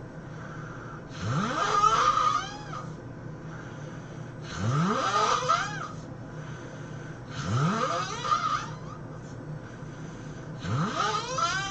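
A person snoring, four snores about three seconds apart, each with a rising pitched tone.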